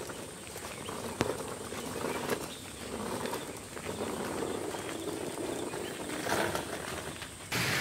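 Footsteps along a wet concrete path, an uneven scuffing with scattered clicks, a sharp one about a second in. Near the end the sound cuts suddenly to a steady, louder rushing hiss.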